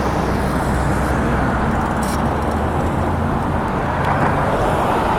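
Car driving on a city road: steady road and traffic noise with a low engine hum.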